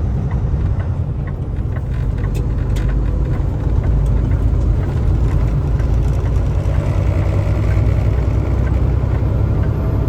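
Semi truck's diesel engine running, heard from inside the cab as a steady low rumble, with a few faint clicks.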